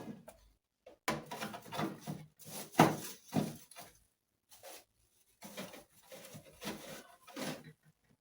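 Irregular rustling and handling noises in short bursts with brief pauses, like household items being moved about and set down.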